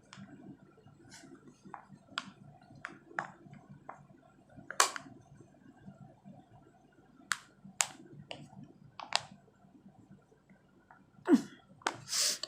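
Scattered short faint clicks, then near the end a woman sneezes once: a loud voiced catch of breath followed by a sharp hissing burst.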